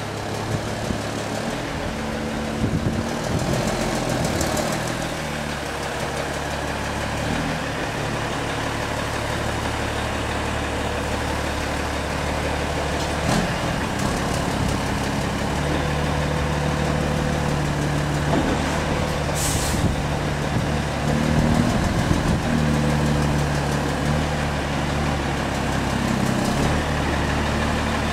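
Diesel engine of a heavy aerial-platform fire truck running at low revs as it inches through a tight gap, its note rising and falling with small bursts of throttle. A short hiss of air from the air brakes comes about two-thirds of the way in.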